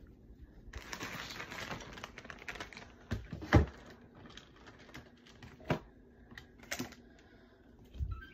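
Handling noise close to a phone's microphone: rustling of cloth, then scattered clicks and knocks, the loudest about three and a half seconds in.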